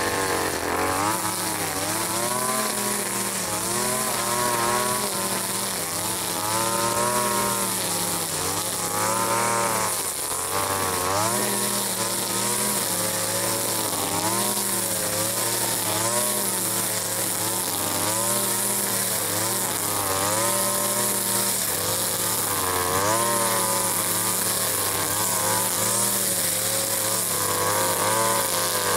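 Small petrol engine of a handheld garden cutting tool running hard under load, its revs rising and falling continually as it cuts through growth.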